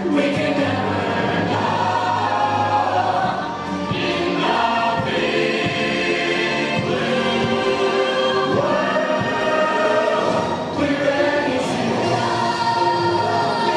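A stage musical number: the cast singing together as a chorus over orchestral show music, amplified through the theatre's sound system.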